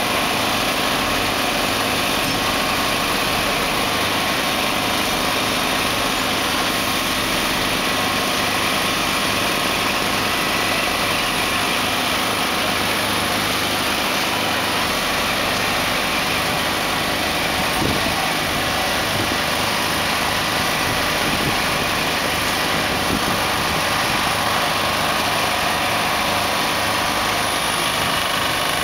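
Heavy-haulage truck's diesel engine running steadily at low revs while it pulls a heavy trailer at walking pace.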